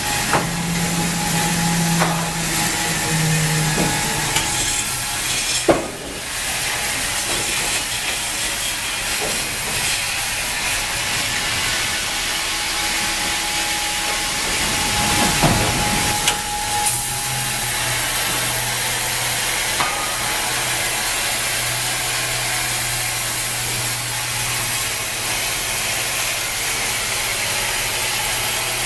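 Wravor band sawmill running, a steady hiss with a low motor hum in the first few seconds that returns lower in pitch from just past halfway. A sharp click about six seconds in.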